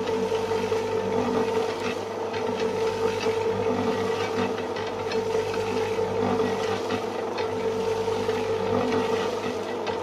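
Small electric toy motor running steadily with an even hum, over faint gritty scraping and ticking.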